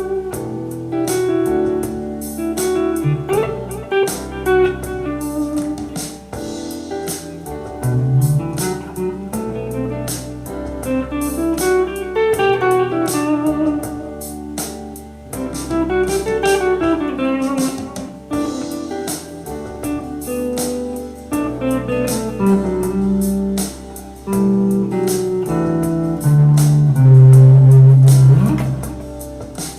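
Electric guitar playing lead lines and scale runs that climb and fall, over a backing track with drums and bass.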